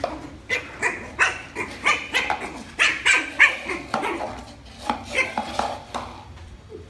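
Lhasa apso puppy barking: a quick run of short, high-pitched yaps, more than a dozen in about five seconds, that stops near the end.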